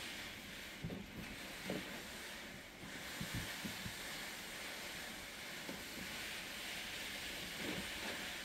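Creek water flowing as a steady rushing hiss, with a few faint, irregular low knocks.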